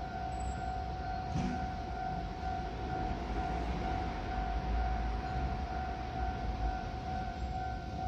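Electronic level-crossing warning bell ringing in an even, repeating pattern of about two strokes a second, over a low rumble of city and rail noise.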